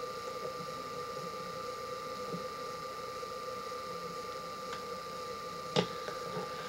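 Steady electrical hum and hiss of a small room, with faint handling sounds as a knot is tied in fishing line, and one sharp click near the end.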